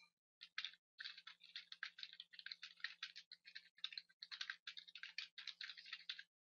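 Computer keyboard typing: a fast, uneven run of faint key clicks with a few short pauses.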